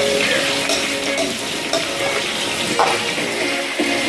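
Sliced onions and carrots sizzling in hot oil in a stainless steel frying pan as they are stirred, the utensil scraping the pan, with one sharper clink of metal on the pan near three seconds in.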